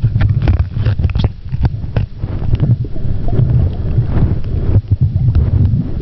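Water noise heard through a camera's underwater housing: a steady low rumble with scattered clicks and crackles, thickest in the first two seconds.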